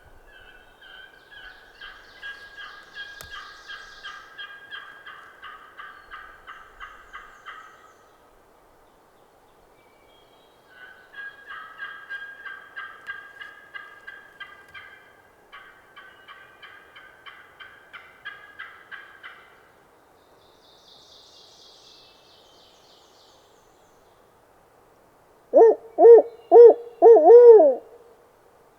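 Long runs of rapid turkey calling, many quick notes strung together, which the hunter takes for other hunters working turkey calls close behind him. Near the end come four loud, close owl-style hoots, the last one dropping in pitch: a hunter hooting back.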